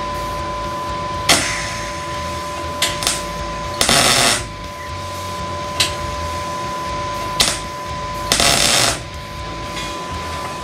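Electric arc welding steel nuts together: sudden crackling bursts of the arc as tack welds are struck, two lasting about half a second and the rest brief pops, over a steady high whine.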